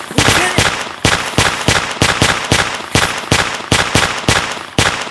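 Sustained rapid gunfire, shots coming about three to four a second over a continuous crackle of fire, as in a firefight with covering fire.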